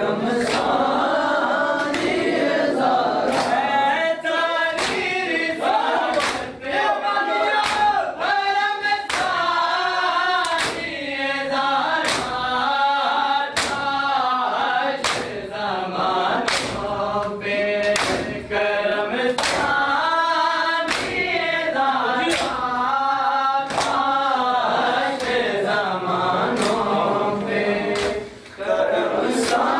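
Group of men chanting a Shia Muharram lament (nauha) together, kept in time by the loud, regular slap of many hands striking bare chests in matam, about one strike every three-quarters of a second.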